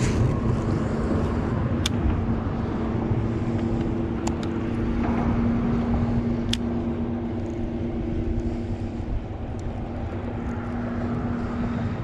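Boat motor humming steadily over a low rumble, with a second, higher hum joining for a few seconds in the middle and a few sharp clicks.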